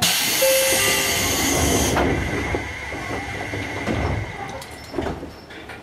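A sudden burst of compressed-air hiss from a standing Seibu 101-series electric train for about two seconds, as its pneumatic doors close. A steady high tone carries on until about five seconds in, with a low thump near four seconds.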